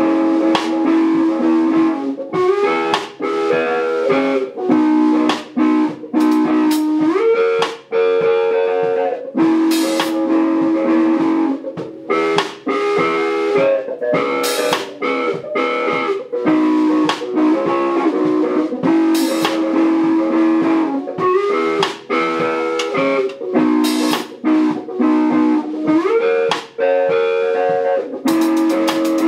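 Live rock band of electric guitar and Yamaha Stage Custom drum kit playing: held guitar chords that slide up to new chords every few seconds, over drums with frequent cymbal crashes.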